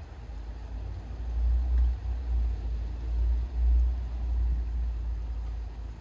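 Distant thunder: a deep low rumble that swells about a second in, rolls on with a couple of surges and fades near the end.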